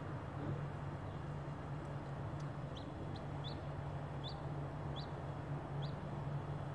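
Hatching chick peeping: six short, high peeps spaced under a second apart, starting about three seconds in, over a steady low hum from the incubator.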